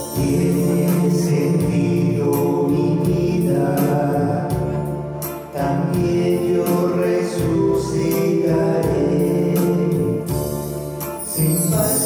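A choir singing a religious hymn over instrumental accompaniment, with a short break between phrases about five and a half seconds in.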